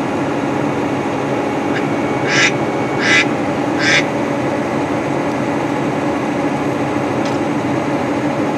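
Steady drone inside the cab of a John Deere 9420R tractor, its engine held at about 1,500 rpm to drive the grain cart's unloading auger through the PTO while the cart empties into a truck. About two to four seconds in, three short raspy squawks cut through the drone.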